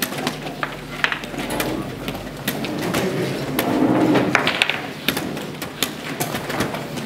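Scattered sharp clicks and knocks of chess pieces set down on wooden boards and chess clocks being pressed around a tournament hall, over a steady low hum. A low murmur swells briefly about halfway through.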